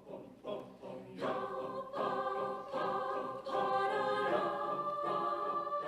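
Music: a few repeated short notes, then from about a second in a choir singing long held chords.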